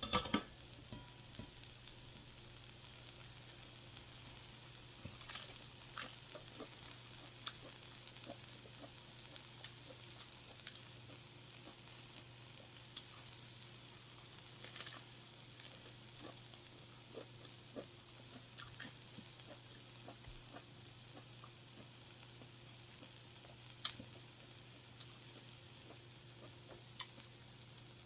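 Food sizzling faintly on a grill, a steady hiss broken by scattered small pops and clicks, one sharper click near the end.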